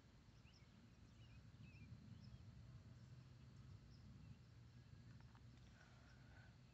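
Near silence: faint outdoor ambience with a steady low hum and a few faint bird chirps in the first couple of seconds.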